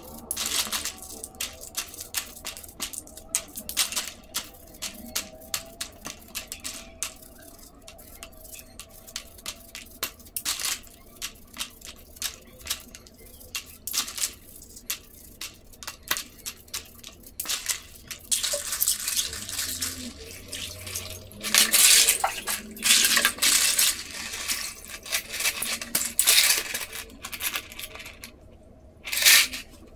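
Plastic keyboard keycaps being washed in water: many quick clicks and clatters as they knock together and are scrubbed with a brush. From about eighteen seconds in come several longer, louder bursts of washing noise.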